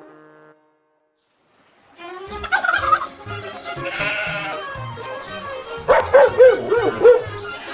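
Overlapping farm animal calls, including a wavering bleat near the end, over background music. They start about two seconds in, after a short silence.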